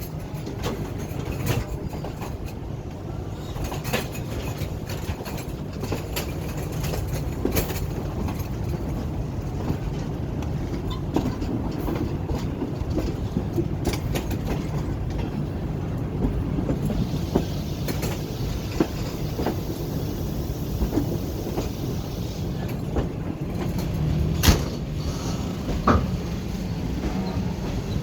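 Sir Syed Express passenger train rolling into the station: a steady rumble of wheels on track with irregular clicks and knocks over the rail joints. A hiss rises for several seconds past the middle, and one louder knock comes near the end.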